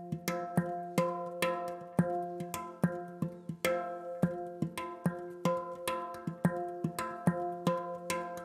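Handpan played with the hands: a quick, even pattern of struck notes, about three a second, each ringing on so the pitches overlap into a shimmering melody.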